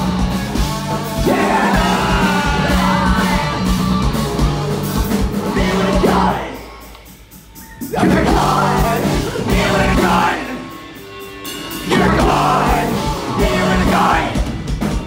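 Live rock band playing loud, with electric guitars, bass, drums and vocals. The band stops twice, about six and about ten seconds in, lets the sound ring down for a second or so, then crashes back in together.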